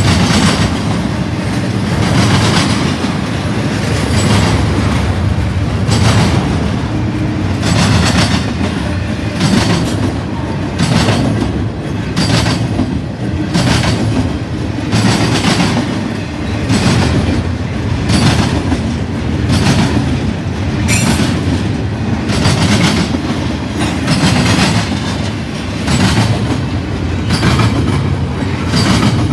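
Double-stack intermodal well cars of a freight train rolling past: a steady low rumble with the wheels clacking over the track about once a second.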